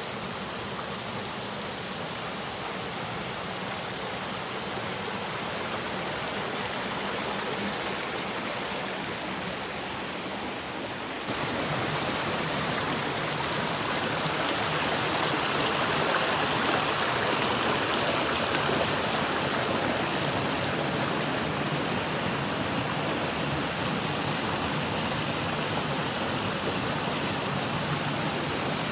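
Mountain valley stream: a steady rush of running water. About eleven seconds in, it steps up louder and brighter.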